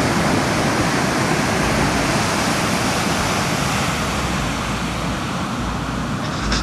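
Steady roar of breaking ocean surf, with wind buffeting the microphone in low rumbles from about a second and a half in.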